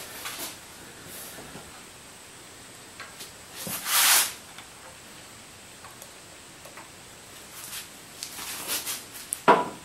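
Cutting oil squirted from an oil can with a flexible spout onto a hand pipe-threading die: one short hiss about four seconds in. A few soft knocks and a sharp clack come near the end.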